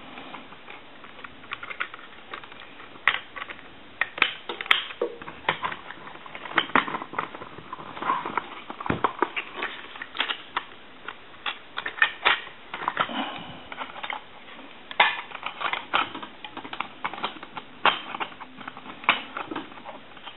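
Harris TS22 lineman's butt set being reassembled by hand: irregular clicks, clacks and light knocks as its housing parts are fitted and pressed back together.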